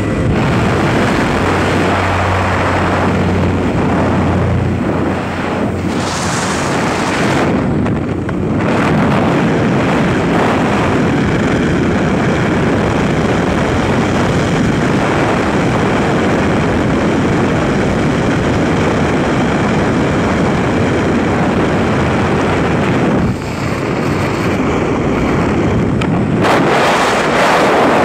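Loud wind rush on the microphone with the drone of a light aircraft's propeller engine through the open jump door. Near the end it turns into the even rush of air in freefall.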